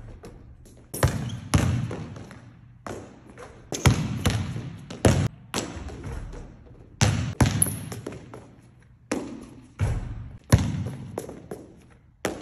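A basketball thudding on an indoor court floor at irregular intervals during shooting practice, each impact echoing around the large gym hall.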